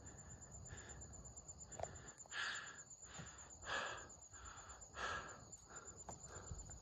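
A hiker breathing hard, with three heavy breaths out a little over a second apart, out of breath from the long uphill climb.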